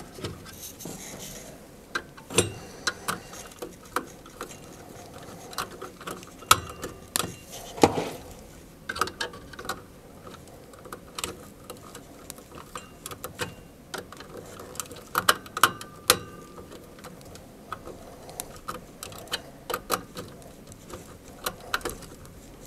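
Irregular small clicks and taps of hand work at a variable frequency drive's terminal block, a small screwdriver working in the screw terminals.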